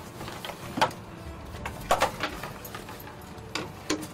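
A handful of short, sharp knocks and rustles from bags and belongings being handled and pulled out of a cabin cupboard during a search.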